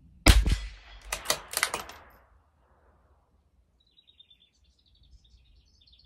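A single shot from a CZ 457 LRP bolt-action .22 LR rifle, followed about a second later by a quick run of metallic clicks as the bolt is worked to eject the case and chamber the next round. Faint bird chirps follow in the second half.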